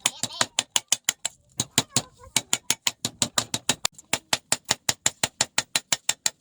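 Rapid, even chopping knocks, about six a second, as of a cleaver on a cutting board, with a pause of about a second partway through. A voice is heard faintly near the start.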